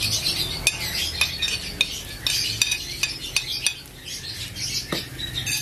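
Chopped shallots, garlic and chillies sizzling in hot oil in a pan, with a metal spatula scraping and clicking against the pan again and again as they are stir-fried.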